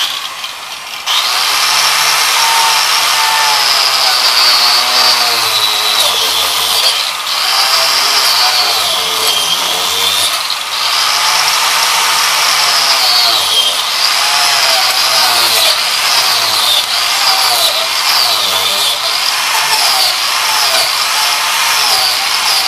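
Electric angle grinder with a wood-carving disc starting up, then cutting into a log from about a second in to hollow out a notch. Its high whine keeps dipping and recovering as the disc bites into the wood and eases off.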